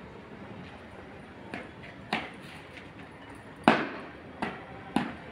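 Cadets' boots stamping on paved ground in parade drill: five sharp thumps at uneven spacing, the loudest a little past halfway.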